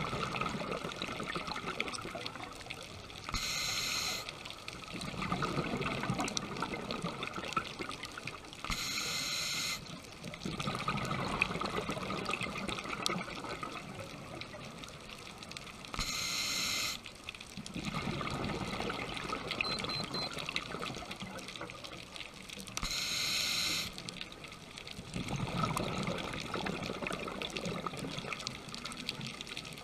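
Scuba diver breathing through a regulator underwater: a short hiss of inhalation about every six to seven seconds, four times, each followed by a few seconds of bubbling exhalation.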